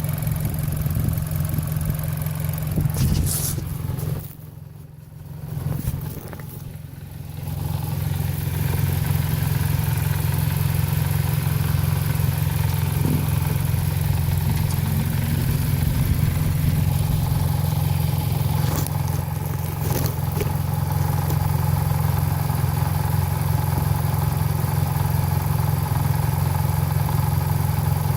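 2016 Nissan Versa's HR16DE 1.6-litre four-cylinder engine running with a steady low drone. Its level drops for a few seconds about four seconds in, then it runs on steadily. The owner suspects the sound may be timing chain rattle.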